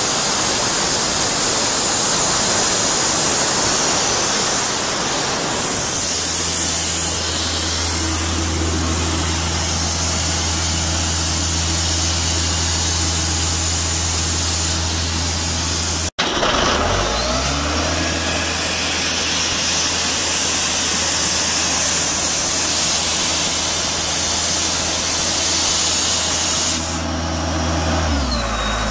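John Deere 4.5-litre four-cylinder diesel engine of an Ingersoll Rand 185 towable air compressor running at a steady speed, after a steady rushing noise in the first six seconds or so. After a brief break about halfway the engine note rises as it speeds up, then holds steady. It drops again near the end.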